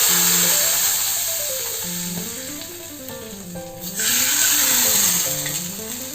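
A hot oil tempering of black mustard seeds sizzles as it is poured into the rasam. The loud hiss fades over the first three seconds, then flares up again suddenly about four seconds in. Background music with a melody plays throughout.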